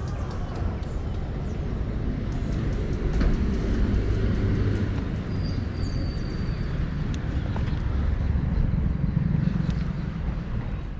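Street traffic with a steady low wind rumble on the microphone, heard from a moving bicycle.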